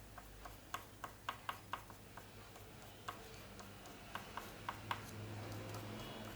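Oil pastel working on paper: a run of short, irregular taps and scratchy strokes in small clusters, a few each second.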